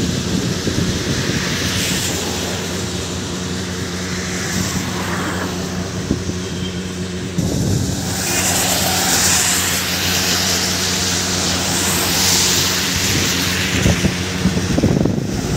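Steady engine hum with wind and road noise, as heard riding in a moving vehicle; the noise changes abruptly about seven seconds in and turns more hissy after.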